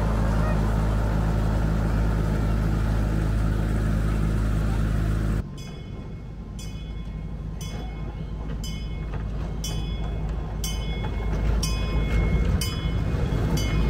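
Miniature park train: a steady low engine hum close by, which stops abruptly about five seconds in. After that come regular ringing clicks about once a second over a low rumble that grows louder as the train comes closer along the track.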